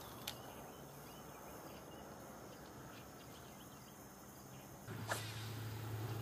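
Faint lakeside background with insects and birds chirping, broken by a single sharp click shortly after the start. About five seconds in, a steady low hum starts, which is the bow-mounted electric trolling motor pushing the bass boat along the rocky bank.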